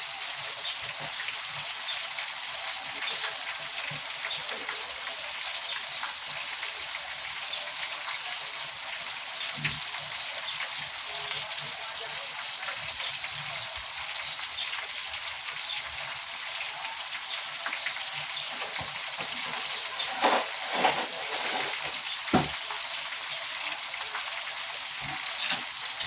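Chicken pieces deep-frying in canola oil: a steady sizzle with fine crackling, and a few louder bursts of noise about twenty seconds in.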